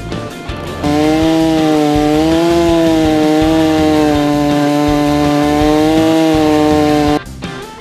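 Two-stroke chainsaw running at high revs, its pitch wavering slightly, loud and steady for about six seconds before it cuts off abruptly.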